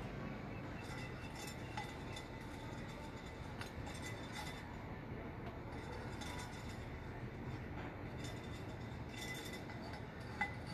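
Faint clinks and scrapes of hands working in a flower pot while repotting an orchid, with one sharper clink near the end, over a steady low outdoor hum.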